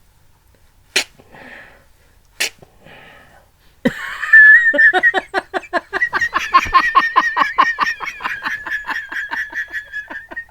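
A man's put-on sneezing: two short, sharp sneezes about one and two and a half seconds in. From about four seconds comes a long, loud, high-pitched sneezing fit that pulses several times a second and keeps on.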